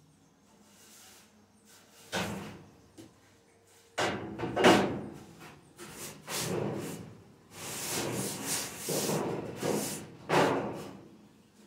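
A broom sweeping a floor: a run of scraping swishes in quick strokes, starting about two seconds in and loudest about four and a half seconds in.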